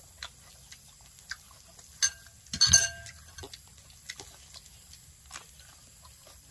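Scattered light clicks and taps of forks and spoons against plates, with a louder clatter about two and a half seconds in.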